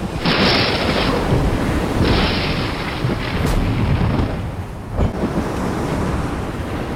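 Storm ambience: a steady rush of rain and wind under deep rumbling thunder, with a short thud about five seconds in.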